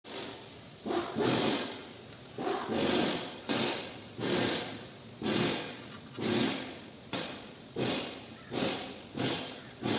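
Welding arc crackling in short repeated bursts, a little more than one a second, each starting sharply and fading away.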